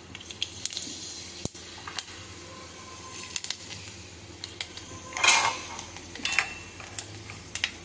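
Fenugreek seeds frying in hot mustard oil: a steady light sizzle with scattered pops and crackles, and one brief louder burst of noise about five seconds in.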